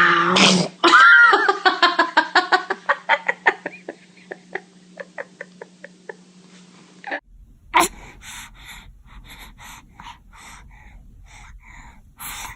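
A baby's voice: a loud squeal, then a run of quick laughs that slow and fade. After that comes a series of short breathy gasps, about two a second, building up to a sneeze.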